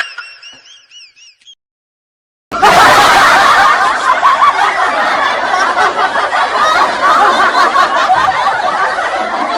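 Laughter sound effect: many people laughing at once, starting suddenly about two and a half seconds in after a short gap. Before it, a faint warbling high tone fades out.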